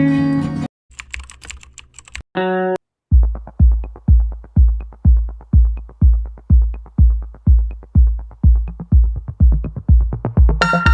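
Background music: a track cuts off within the first second, and after a short gap an electronic track starts with a steady kick-drum beat of about two beats a second.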